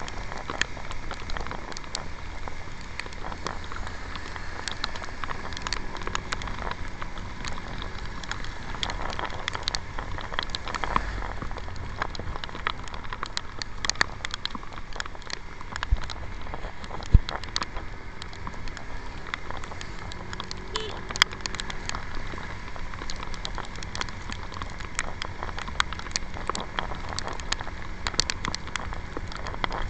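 Raindrops ticking sharply and irregularly on a handlebar-mounted camera on a moving Yamaha scooter. Under them runs a steady rush of wind, tyres on the wet road and the scooter's engine.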